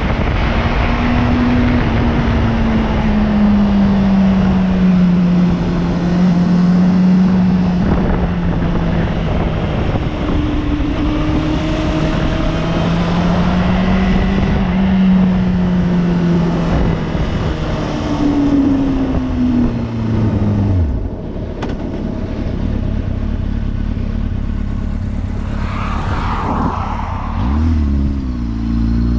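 Sport motorcycle engine running at road speed under wind rush on the microphone, its pitch wavering with the throttle. About twenty seconds in the engine note drops away as the bike slows, and near the end it climbs again in rising steps as the bike accelerates.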